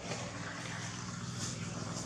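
A steady low motor hum with a hiss over it, growing slightly louder at the start.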